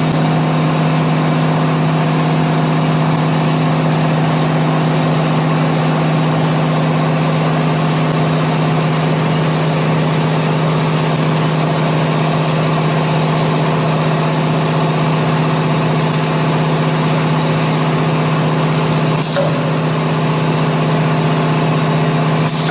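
CNC router spindle running at a steady speed: an even, unchanging machine hum. Two brief ticks sound near the end.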